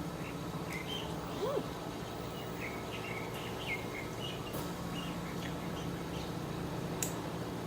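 Small birds chirping in short, high notes through the first half, over a steady low hum, with a few sharp clicks near the middle and the end.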